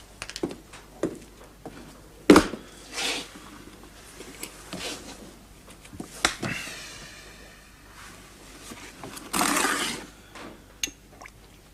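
Knocks and clatter at a wooden table as a man sits down: a sharp knock a little over two seconds in as a metal-spiked helmet is set on the table, with scattered taps and scrapes. Later comes glass bottle handling.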